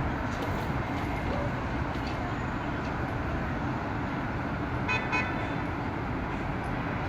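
Steady traffic and city noise, with a short horn toot, like a car horn, about five seconds in.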